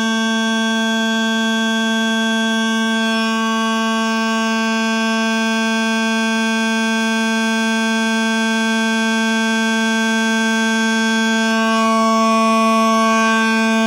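Homemade toy train horn sounding one continuous, steady buzzing horn tone that does not change pitch and gets a little louder near the end.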